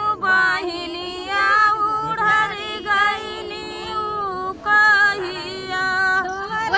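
A woman singing a melody, with long held, wavering notes over a steady lower tone.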